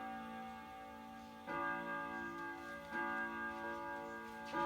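Soft background music of sustained, bell-like chords, with a new chord struck about every second and a half.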